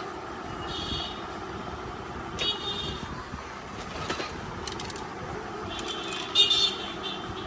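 Steady traffic-like background noise with short, high-pitched horn toots three times, the last one the loudest.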